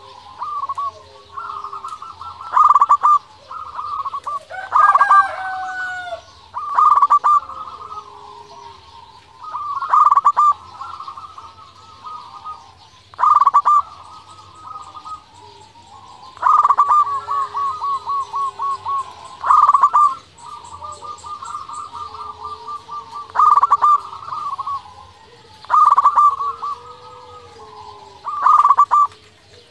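Local zebra dove (perkutut) singing: about ten phrases of quick, rolling coo notes, one every two to three seconds. Faint high chirps of other birds sound behind it.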